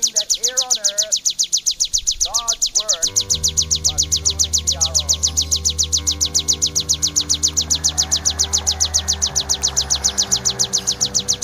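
Ciblek (prinia) calling in a fast, unbroken run of sharp, high chirps, about eight a second. A man's voice ends about three seconds in, and music with long held notes plays under the chirping after that.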